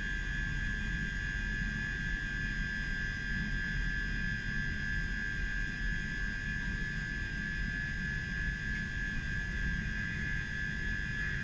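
A stationary electric multiple unit idling at the platform: a steady high-pitched whine over a low steady hum, with no change in pitch or level.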